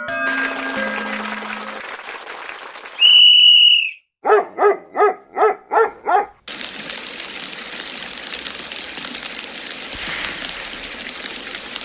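A run of cartoon sound effects: fading chime notes, then a short loud high whistle, then six quick yapping dog barks in a row, followed by a steady hiss that gets louder near the end.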